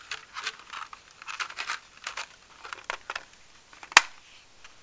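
Rustling and crinkling handling noise close to the microphone, with one sharp click about four seconds in.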